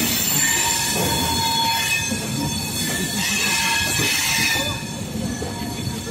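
Rajdhani Express passenger coaches rolling slowly into a station platform, the wheels squealing with several steady high tones over the running rumble as the train brakes to a stop.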